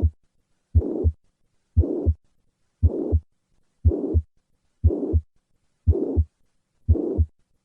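Heart sounds heard through a stethoscope, about one beat a second. Each beat is a pair of short low thuds, the first and second heart sounds, with a steady, plateau-shaped systolic murmur filling the whole gap between them. This is the holosystolic murmur of mitral regurgitation, here from posterior papillary muscle involvement, with the murmur transmitted to the left sternal edge.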